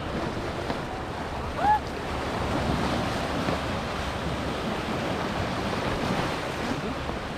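Small waves breaking and washing on a beach, with wind buffeting the microphone. About a second and a half in, a short high squeak rises and falls.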